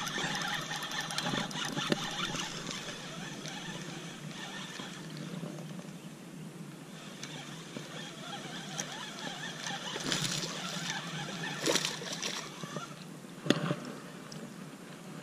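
Spinning reel cranked on a steady retrieve over lapping water. A hooked bass splashes at the surface beside the boat, three sharp splashes in the last five seconds.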